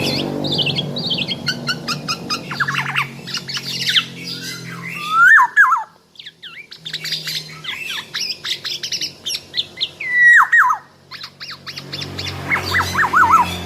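Black-naped oriole calling and singing busily: a stream of quick chirps and whistles, with two loud squawking calls that glide down in pitch, about five and ten seconds in.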